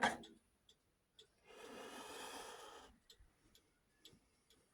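A single breath out, about a second and a half long, midway through, with a few faint scattered clicks around it.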